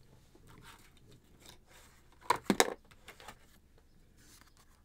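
Desk handling noise as a spiral notebook is reached for and picked up: faint rustling, with a quick cluster of sharp knocks about two and a half seconds in.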